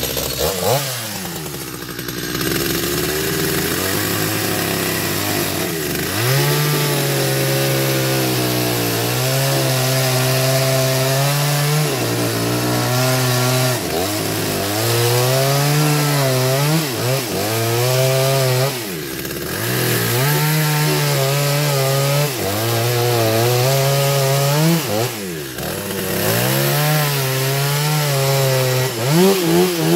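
Chainsaw cutting through wood. The motor runs at a high, steady note that sags under load and picks up again about every six seconds.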